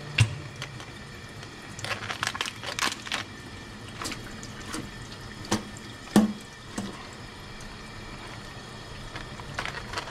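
Kitchen tap running into a stainless steel sink while a cooked Dungeness crab is pulled apart by hand under the stream, with sharp cracks and snaps of shell scattered through it; the loudest snaps come just after the start and about six seconds in.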